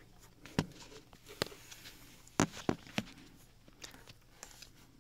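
Scattered light clicks and taps of handling at the sewing machine's hook area: five sharp ones in the first three seconds, then a few fainter ones.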